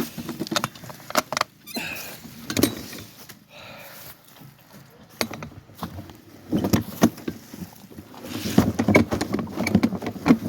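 A wagon load of mulch being handled, with irregular knocks and rattles; from about eight seconds in it gets busier, adding a rustling scrape.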